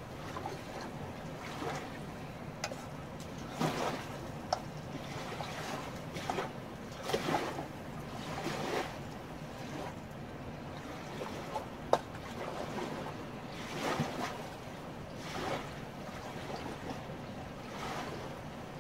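River water running and lapping at the shore in irregular washes every second or two, with a few sharp clicks, the loudest about twelve seconds in.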